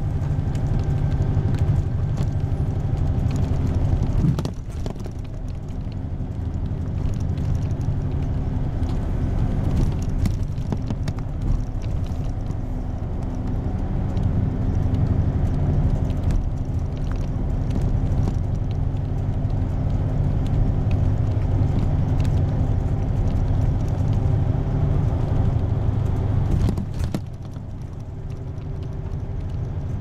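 Engine and road noise inside a moving bus: a steady low rumble with a few faint steady tones above it. The sound drops quickly about four seconds in and again near the end.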